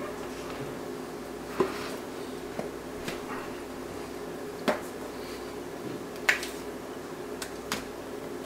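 Spatula scooping thick chocolate frosting from a glass bowl and dropping it onto a sheet cake: about five sharp clicks and taps, roughly a second and a half apart, as the spatula knocks against the bowl, over a steady low hum.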